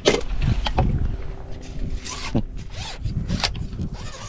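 Rustling and swishing of floating water hyacinth leaves as a fishing line is pulled through the mat, with several short rasping scrapes.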